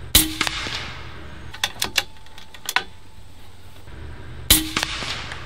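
Bintac MCAR .457 big bore PCP air rifle firing 337-grain slugs: a sharp report with a short ring right at the start, a few light clicks a second or two later, and a second identical report about four and a half seconds in.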